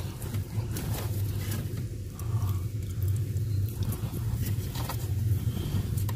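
Fingers working a black plastic wiring connector into the Ram's VSIM module: faint plastic rubbing and a few light ticks as the plug is pushed and has not yet latched. A steady low hum underlies it.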